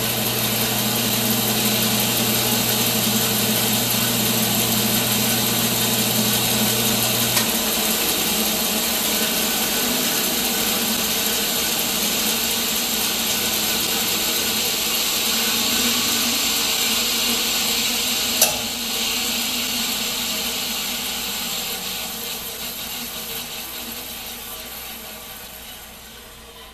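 Grizzly band saw running free with no cut, its motor and blade making a steady sound, with a low hum dropping out about seven seconds in. A sharp click about two-thirds of the way through, after which the saw coasts down and the sound fades gradually.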